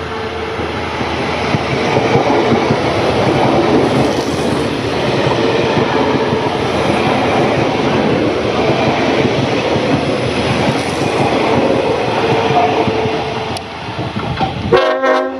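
An electric Queensland Rail Tilt Train passing close on the adjacent track, heard from an open carriage window: a loud rush of air and wheels on rail that builds over the first two seconds, holds, and eases off after about twelve seconds. A short train horn sounds just before the end.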